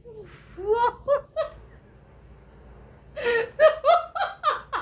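A woman laughing: a few short laughs about a second in, then a louder run of rapid ha-ha laughs, about three a second, near the end.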